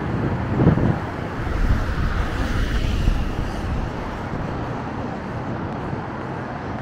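Steady traffic on a wide multi-lane city highway, swelling louder around two to three seconds in.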